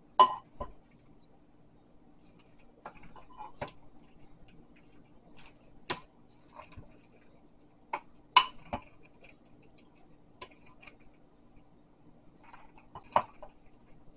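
A wooden spoon and a metal spoon folding a mayonnaise-dressed macaroni salad in a glass mixing bowl. The utensils give a handful of sharp clinks against the glass, loudest about a quarter second in and about eight seconds in, with soft wet stirring between them. A faint steady hum lies underneath.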